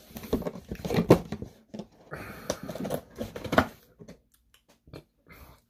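A person chewing crispy fried chicken close to the microphone, with dense crunching for about three and a half seconds that then thins to a few faint wet clicks.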